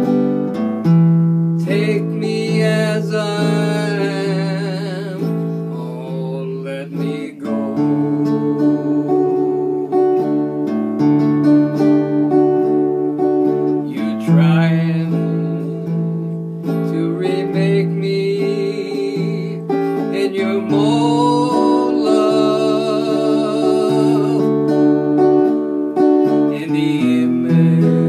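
A man singing a slow country song, with vibrato on the held notes, accompanying himself with chords on an archtop guitar.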